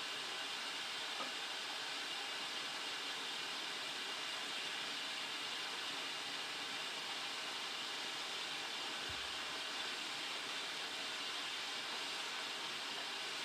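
Steam locomotive M4 hissing steam in a steady, even stream with no exhaust beat.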